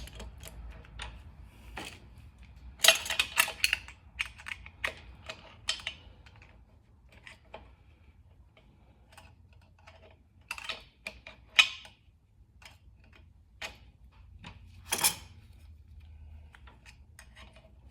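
Irregular metallic clicks and rattles of a motorcycle roller drive chain being handled and fed around its sprocket. The clicks come in short clusters, with the loudest ones about three seconds in and near the middle.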